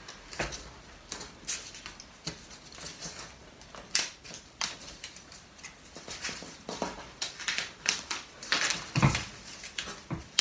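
Strips of black tape being peeled off a paper board and handled: irregular rustling and crinkling with scattered sharp clicks and taps.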